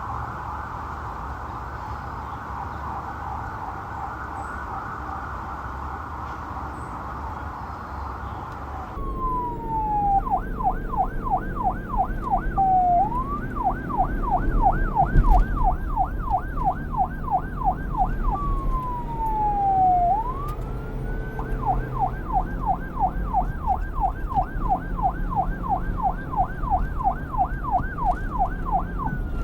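Electronic police siren. For the first nine seconds it is a blurred, fast-warbling tone. It then switches abruptly to a clean siren that alternates slow rising and falling wails with runs of rapid yelp sweeps, about two to three a second, over a low rumble.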